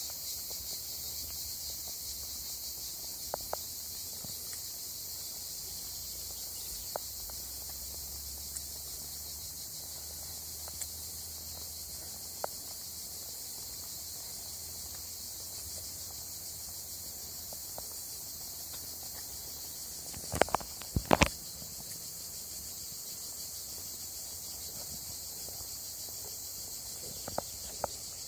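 A steady, high-pitched insect chorus, with a few sharp knocks about two thirds of the way through.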